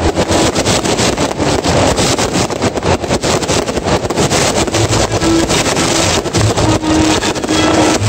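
Fireworks going off in a rapid, unbroken barrage of bangs and crackles, over a steady low rumble.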